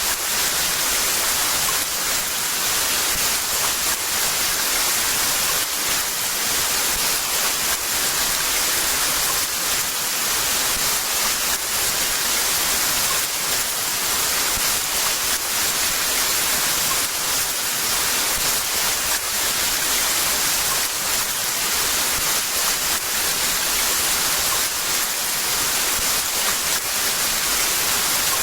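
Heavy rain falling steadily, a dense even hiss of countless drops with no breaks.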